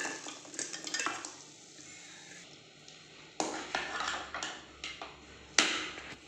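Metal spoon scraping and clinking against a cooking pan as fried paneer pieces are added to the masala gravy, with sharper clanks about three and a half seconds in and again near the end.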